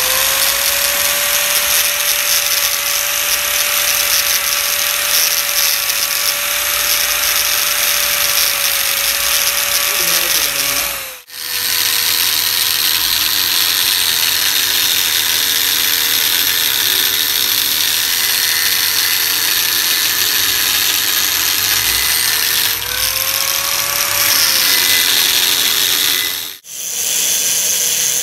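Electric power tool running on metal: a steady motor whine over a loud hiss. The pitch sags briefly as the tool is loaded and recovers. The sound breaks off abruptly twice, about 11 and 26 seconds in.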